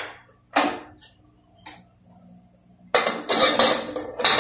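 Metal pressure cooker lid being set on and closed onto the cooker: a sharp clank about half a second in, then a longer run of metal clattering and knocking near the end as the lid is fitted.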